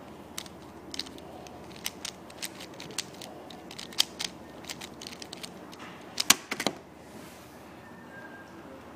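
Dayan Zhanchi speedcube with its layers being turned quickly by hand: a run of sharp, irregular plastic clicks, the loudest cluster about six seconds in, stopping about a second later.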